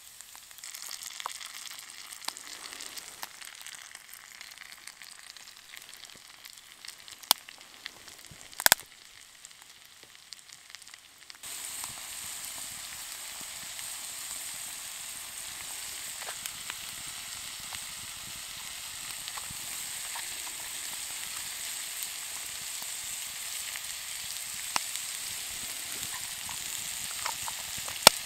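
Onions in butter sizzling softly in a cast-iron skillet over a wood fire, with a few sharp pops. About eleven seconds in, the sizzle becomes louder and steadier as onions and mushrooms fry together.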